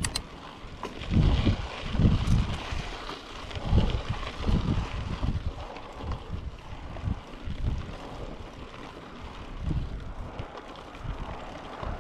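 Wind buffeting the microphone in irregular low gusts while a mountain bike rolls along a dirt trail, its tyres giving a steady hiss underneath. A couple of sharp clicks come right at the start.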